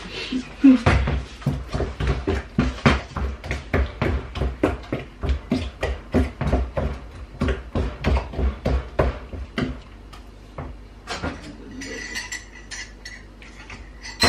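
Wooden spoon beating thick puff-puff batter in a white ceramic bowl, knocking against the bowl about three or four times a second. The beating stops about ten seconds in, leaving softer scattered kitchen sounds.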